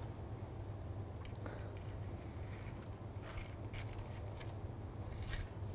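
A metal spatula scraping coarse sea-salt crust off baked plaice in a stainless steel pan: a few short scrapes and clinks of the blade against the salt and pan, the loudest near the end, over a steady low hum.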